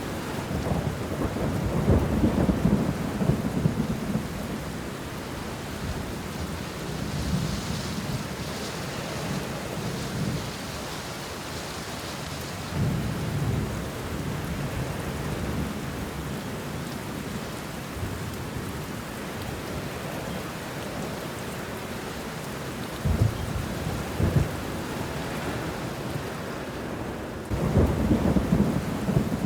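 Steady rain falling on banana leaves and bushes, with thunder rumbling several times: a long roll in the first few seconds, shorter rumbles around the middle and just after two-thirds of the way, and another near the end.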